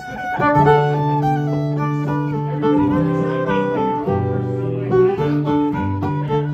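Acoustic string-band music: a fiddle playing over a strummed guitar.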